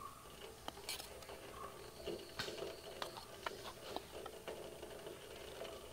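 Faint, scattered light clicks and taps of a steel spoon and ladle against a steel pot as liquid in it is stirred.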